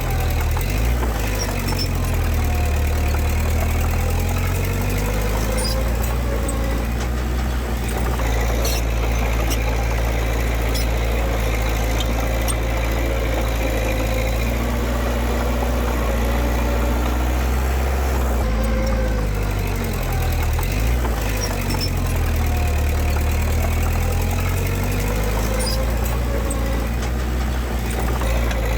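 Diesel engine of heavy earthmoving equipment running steadily with a deep low rumble, its engine note rising and falling in pitch a few times.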